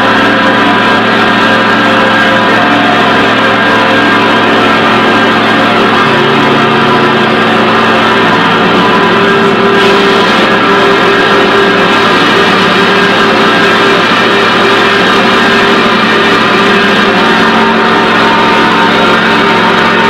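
Loud noise improvisation on prepared electric guitar and bass guitar: a dense, unbroken wall of many held tones over a noisy haze, with no pauses or sharp attacks.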